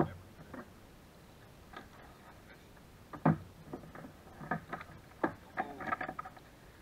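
Irregular clicks and knocks from fishing tackle and hands against plastic kayaks while a spinning reel is worked. The loudest knock comes a little over three seconds in, and a quick cluster follows near the end.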